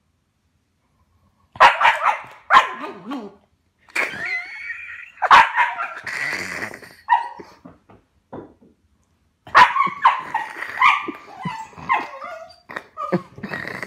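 A dog barking and yipping in repeated short bursts with pauses, some calls wavering up and down in pitch.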